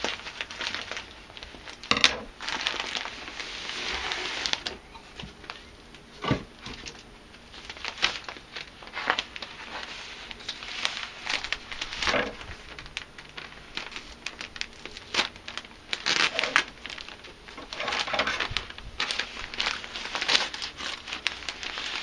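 A cardboard shipping box being opened by hand and its packing handled: paper and packing crinkling and rustling in irregular bursts, with scattered sharp knocks and clicks.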